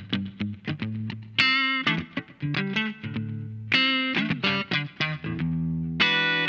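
Electric guitar played through a compressor effect, plucking a short riff of repeated notes over and over, each note starting sharply and ringing on evenly.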